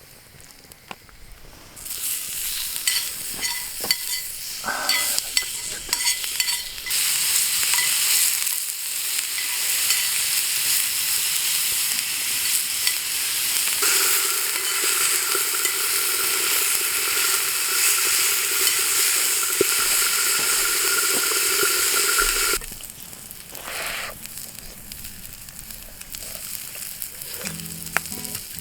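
Food sizzling and spitting in a hot frying pan, loud for about twenty seconds and then dropping suddenly to a softer sizzle. A steady whine joins in about halfway through.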